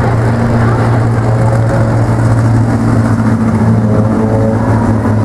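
Pack of mini stock race cars, four-cylinder engines, running hard and steadily as they lap the oval.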